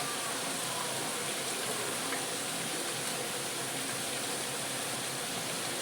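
Steady, even sizzle of chopped garlic frying in oil in a pan.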